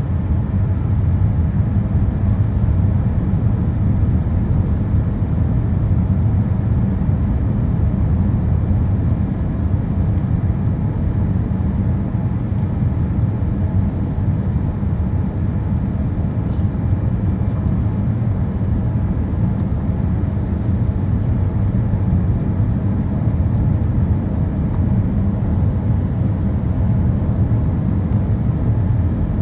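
Steady low cabin noise of jet engines and airflow inside a Boeing 787 in flight, with no change in level.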